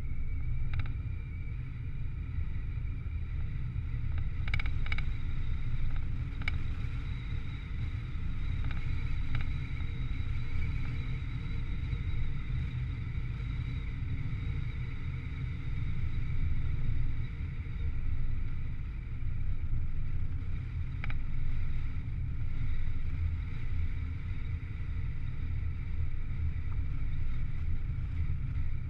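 Steady low rumble of road and wind noise from a camera riding on a vehicle moving along a paved road, with a few faint clicks.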